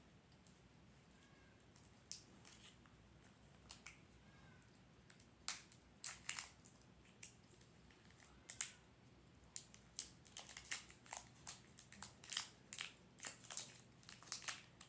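Crinkling and crackling of a Pokémon card pack's foil wrapper being opened and handled: scattered sharp crackles, sparse at first and coming quickly one after another in the last few seconds.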